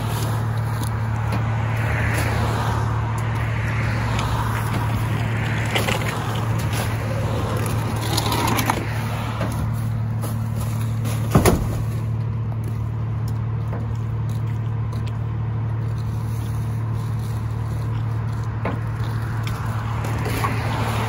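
Rear-load garbage truck engine idling steadily, with plastic trash bags rustling and scraping as they are thrown into the hopper. A loud sharp knock about halfway through as a plastic storage cabinet is dropped in.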